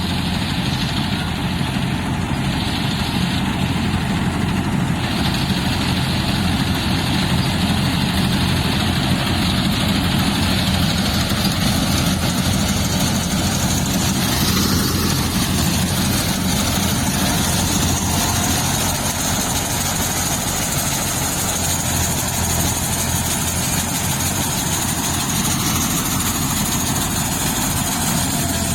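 Engine of rice-harvesting machinery running steadily at an even, unchanging speed.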